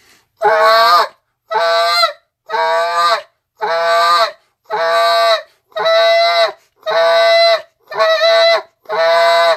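Canada goose call blown in a series of nine evenly spaced, drawn-out notes, about one a second: the train note of the Canada goose. Each note winds out at the end rather than being cut off sharply.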